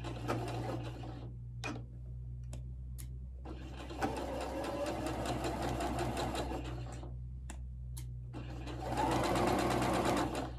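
Pfaff sewing machine stitching a seam through knit fabric in runs: a few clicks at first, a steady run of stitching from about three and a half seconds, a short pause, then a louder run near the end.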